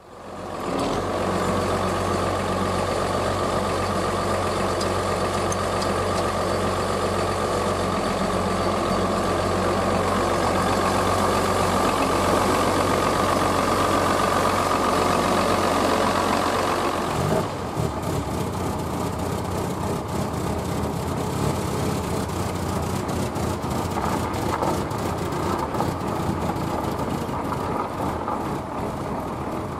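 Farmall tractor engine running steadily, coming in abruptly at the start. Its sound changes about 17 seconds in, becoming a little quieter and rougher.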